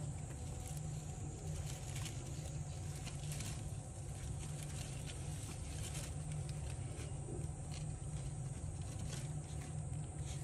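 Soft rustling and scattered light crackles of dry bamboo leaves and straw as two red panda cubs shift about in their nest, over a steady low hum.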